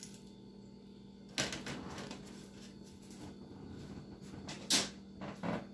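Faint rustling and small knocks of things being handled, with a sharper, louder knock about three-quarters of the way through, over a steady low hum.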